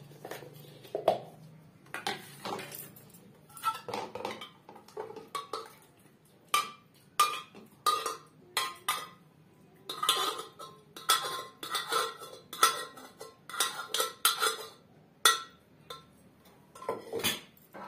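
Metal spoon scraping and clinking against the inside of a pressure cooker as cooked curry is spooned out into a serving bowl: an irregular run of knocks and scrapes, some with a short metallic ring.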